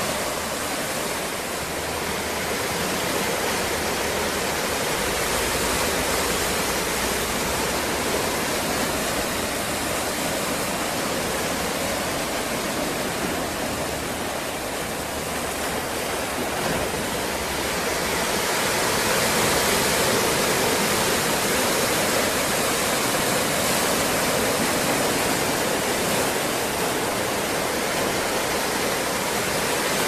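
Atlantic Ocean waves: a steady rushing wash of surf, getting a little louder about two-thirds of the way through.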